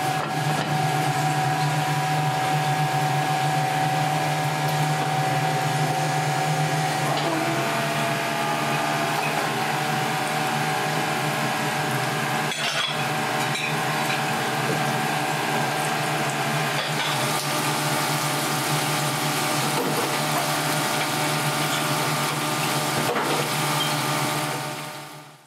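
Cooking on a gas stove: a pot simmering, then oil bubbling and sizzling as battered fish pieces deep-fry in a wok, over a steady low hum.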